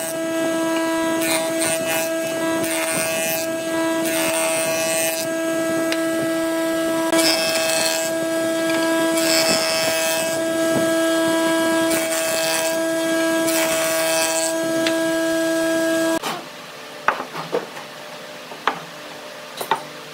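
Jointer running with a steady whine while a wooden block is fed by hand over its cutterhead, the cuts coming as repeated hissing rasps. About sixteen seconds in the machine sound cuts off suddenly, followed by a few light knocks.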